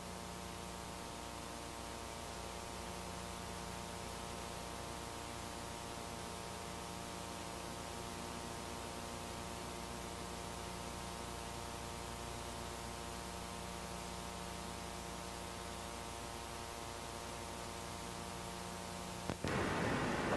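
A steady electric-sounding hum: a stack of even, unchanging tones held for about nineteen seconds. It cuts off with a click near the end, and a loud hiss of noise takes over.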